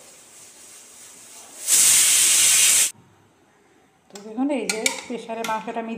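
Pressure cooker letting off steam: a loud hiss lasting about a second that cuts off abruptly.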